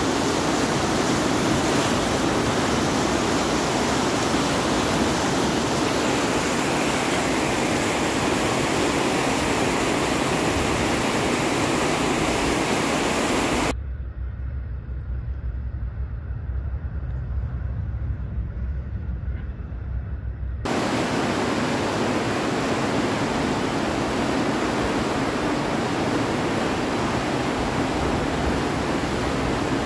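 Floodwater rushing down a street, a steady, even rush of water. For about seven seconds in the middle it gives way to a quieter low rumble with little high sound, then the rushing water returns.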